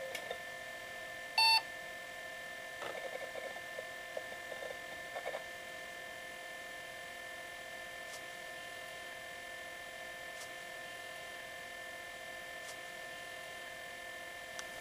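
Toshiba T1200 laptop booting: one short, loud beep about a second and a half in, then a few seconds of irregular drive-access clicking, over a steady high whine from the running machine.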